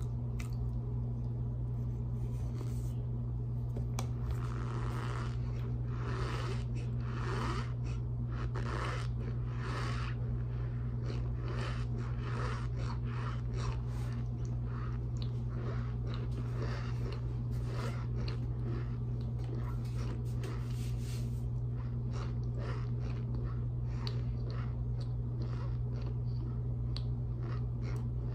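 Raw cornstarch being chewed close to the microphone: a dense run of small crunches and clicks in the first half, thinning out later. A steady low hum runs underneath.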